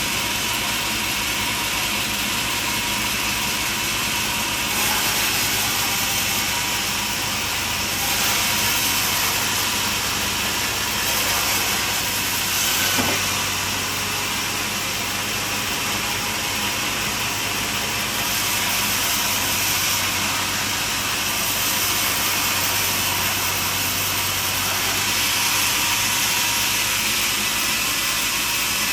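Portable band sawmill running steadily, a loud, even hiss over a low hum that swells and eases slightly, with one brief sharp click about halfway through.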